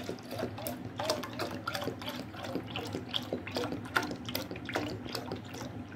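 Milk pouring from a carton into a stainless steel saucepan, the stream splashing into the milk already in the pan with many irregular glugs and spatters.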